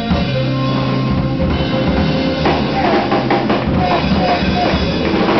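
A live jazz band plays: drum kit and electric bass underneath, with guitar and tenor saxophone. A wavering, pitch-bending melody line comes in about halfway through.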